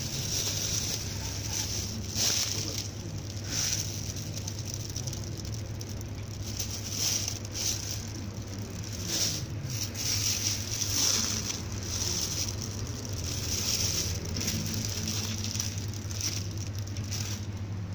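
Clear plastic bags crinkling and rustling as squishy toys wrapped in them are grabbed and lifted from a basket, in irregular bursts over a steady low hum.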